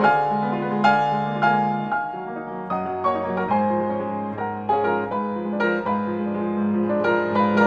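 Solo piano music: a melody of struck notes over held bass notes.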